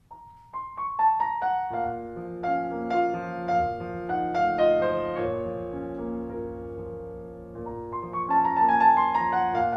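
Solo piano music: a few single notes rising from the start, then a slow melody over held chords from about two seconds in.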